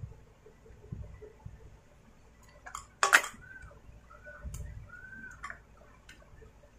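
Small clicks and rattles of plastic and metal parts being handled and fitted at the carburettor of a Stihl MS250 chainsaw, with one louder clatter about three seconds in.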